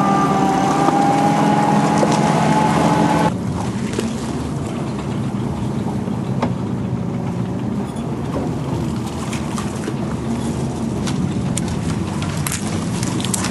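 The six-cylinder engine and tracks of a 1945 Studebaker M29 Weasel running, at first with a steady pitched whine. About three seconds in the sound changes abruptly to a quieter, noisier running sound with scattered sharp clicks.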